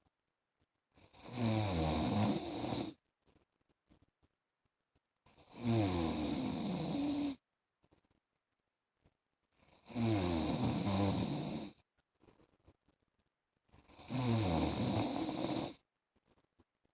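A man snoring in his sleep: four loud snores, each about two seconds long, coming at an even pace about every four seconds, with near silence between them.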